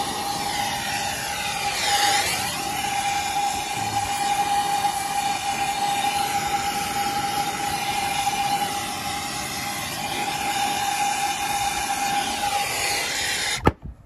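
Air-acetylene torch burning steadily with a hissing rush and a steady whistle while heating a copper refrigerant line joint on an AC condenser. About half a second before the end the flame is shut off with a sharp pop and the sound stops dead.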